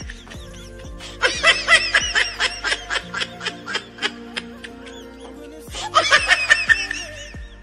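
Two spells of quick, rhythmic laughter, about a second in and again near six seconds in, over steady background music.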